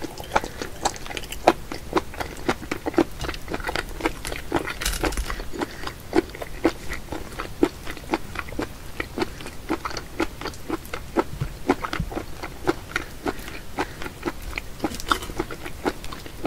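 Mouth chewing raw octopus: a steady run of sharp clicks, about three a second.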